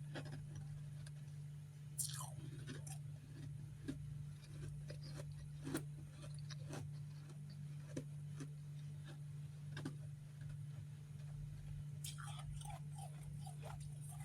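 Close-up chewing and biting of refrozen freezer frost chunks: irregular crisp crunches, with sharper bites about two seconds in and near six seconds, and a run of crunching near the end. A steady low hum runs underneath.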